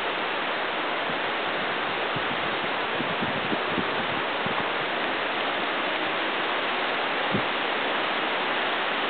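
Steady rushing of a nearby river, an even hiss of fast-flowing water, with a few faint knocks in the middle and one near the end.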